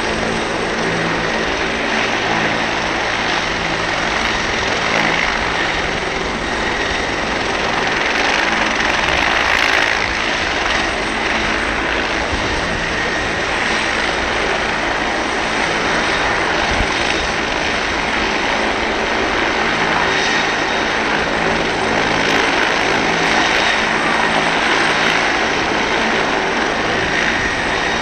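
Helicopter running on the helipad with its rotor turning, before lift-off: a steady, loud mix of turbine and rotor noise with a constant low hum.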